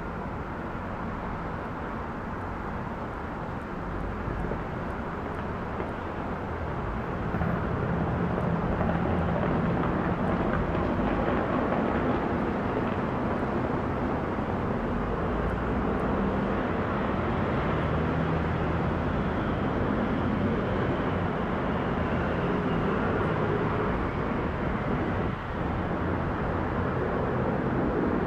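Boeing 777-300ER's twin GE90-115B turbofan engines at climb power after takeoff: a steady jet roar that grows louder about seven seconds in as the aircraft nears, with a faint high whine falling in pitch partway through.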